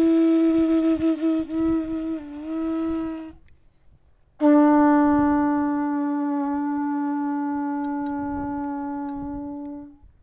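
Two long, steady blasts on a blown horn trumpet: the first ends a few seconds in with a brief wobble in pitch, and after a short pause a second, slightly lower blast is held for about five seconds, slowly fading.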